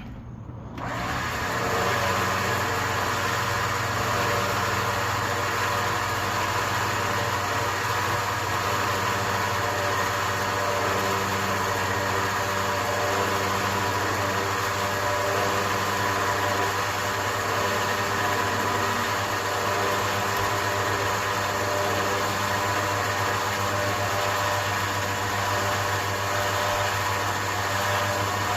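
Electric winch on a Harbor Freight 9000 lb unit, its motor and gear train running steadily as it spools new cable onto the drum. The sound comes up about a second in and holds an even hum and whine throughout.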